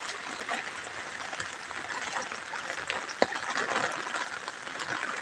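Water sloshing and splashing as a person wades through knee-deep floodwater.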